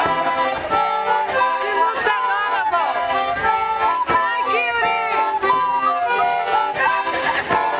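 Small button accordion and a wooden flute playing a folk tune together, the reedy accordion chords under the flute's melody.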